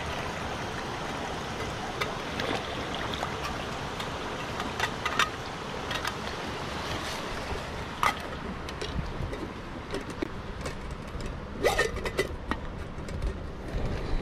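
Water running from a hand-pump spout into a stainless steel cup, with scattered light metallic clinks. The rushing thins after about eight seconds, leaving sharper clinks and knocks of the metal pot being handled, bunched near the end.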